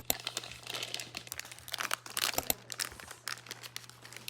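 Plastic blind-bag packets crinkling as they are handled, an irregular run of small crackles.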